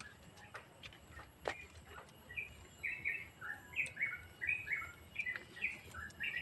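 Small birds chirping, a quick run of short, high notes that steps up and down, starting a couple of seconds in and carrying on. A few light clicks come in the first two seconds.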